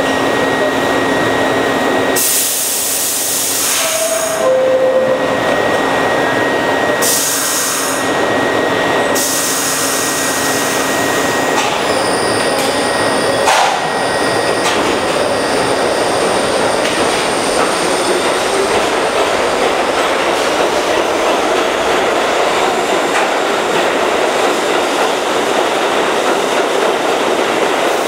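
R62A subway train at the platform: two bursts of hissing, then a falling two-tone door chime about four seconds in, the signal that the doors are closing. The train then pulls out, its motors rising in a whine as it gathers speed and its wheels running on the rails.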